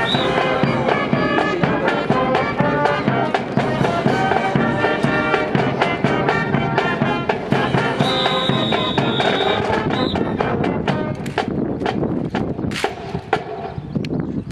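Band music with brass playing held notes. From about ten seconds in, the music thins and a quick run of sharp cracks takes over.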